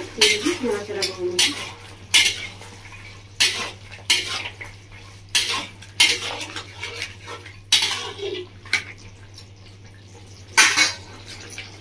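Metal spatula scraping and clanking against the sides of a metal kadai as a vegetable curry is stirred: about ten irregular strokes, the loudest near the end.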